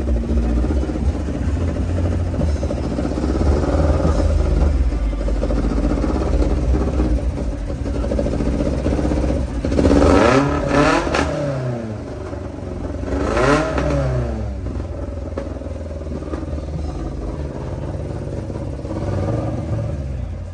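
Car engines running over a constant low rumble, with two loud revs that rise and fall, one about halfway through and another a few seconds later.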